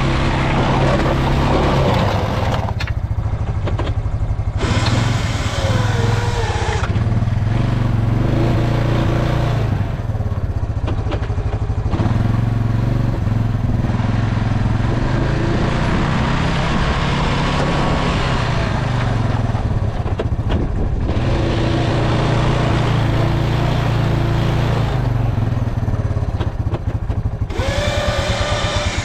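Engine of a vehicle plowing wet snow off a driveway, running steadily with its revs rising and falling as the load changes, and briefly easing off several times.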